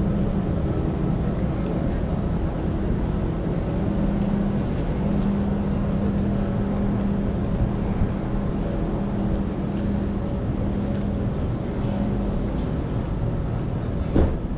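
A vehicle engine running steadily nearby, a low hum with a constant pitch over a rumble. A single sharp knock sounds near the end.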